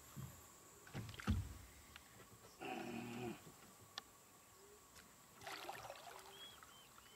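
A hooked Papuan black bass splashing at the water's surface beside a small wooden boat, a little past halfway in, during the fight on the rod. A sharp thump against the boat about a second in is the loudest sound, and a brief voice is heard near the middle.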